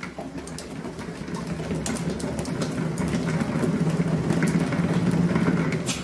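A cat exercise wheel rumbling as it spins under a kitten running inside it. The rumble grows louder over the first few seconds, with scattered light clicks.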